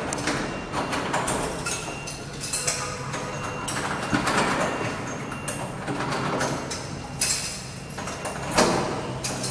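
Key rattling and turning in a wooden door's lock, with repeated metallic clicks and knocks from the lock and door handle as it is worked to unlock; louder knocks come about seven and eight and a half seconds in.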